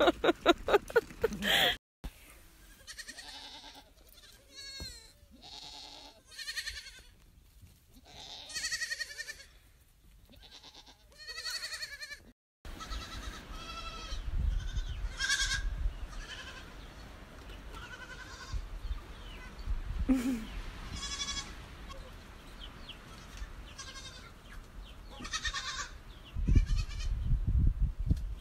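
Young goats bleating over and over, several animals calling at different pitches, with a low rumble near the end.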